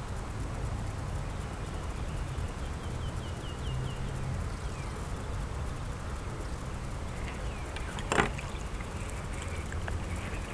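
Steady low outdoor rumble on the microphone, with a bird giving a quick run of about seven short chirps a few seconds in. A single sharp knock sounds about eight seconds in.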